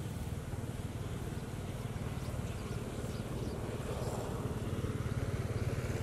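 An engine running steadily, a low rumble with a fast even pulse that grows a little louder near the end.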